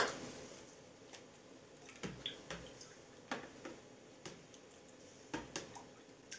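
Metal spoon stirring a cold, watery broth in a plastic bowl: irregular light clicks and taps of the spoon against the bowl, about one or two a second, with faint liquid sounds.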